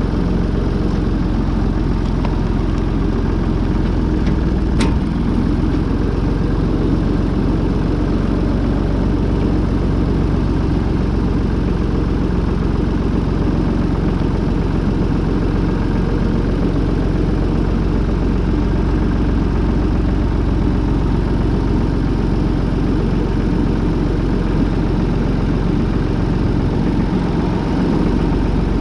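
Farm tractor engine running steadily, with one sharp click about five seconds in.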